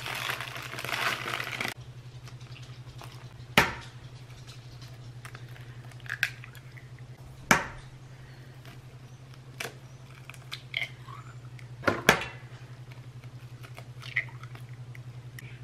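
Dry yellow cake mix poured from its paper bag into a bowl with a rustle, then three sharp knocks a few seconds apart as eggs are cracked on the bowl's rim, with small clicks of shell between.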